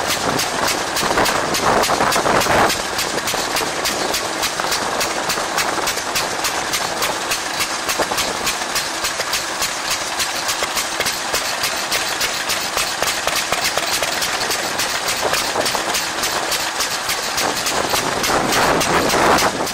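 Small vintage single-cylinder stationary engine with twin flywheels running steadily, its firing strokes coming in an even, rapid beat.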